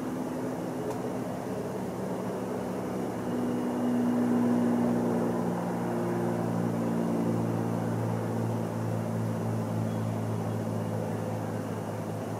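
An engine running steadily with a low hum, getting louder about three seconds in and holding strong after that.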